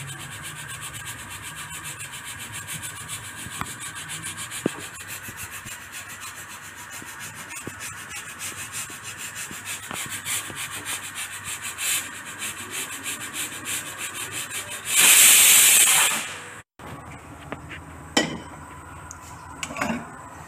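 Pressure cooker on a gas burner hissing as steam escapes under its weight in fast, even pulses, then giving a loud, high whistle about 15 seconds in that lasts about a second and a half: the sign that it has come up to full pressure. After a sudden cut, a few light clinks of a pan.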